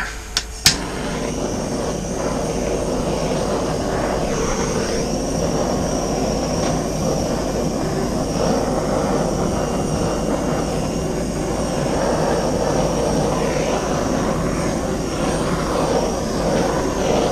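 Handheld torch clicked alight just under a second in, then burning with a steady rushing flame as it is played over wet poured acrylic paint to bring up cells.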